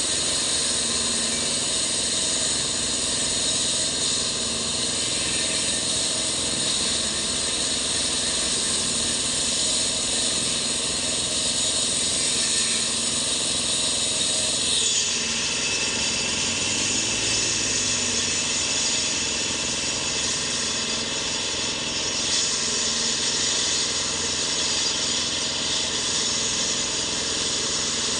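Diesel-engined concrete cutter running steadily: an even engine note under a strong hiss, which grows brighter about fifteen seconds in and again a few seconds later.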